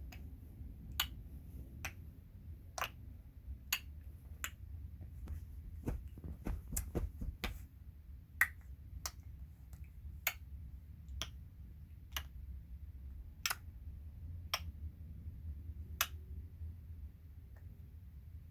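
A baby clicking and smacking her tongue: sharp separate clicks about once a second, with a quicker run of clicks around six to seven and a half seconds in.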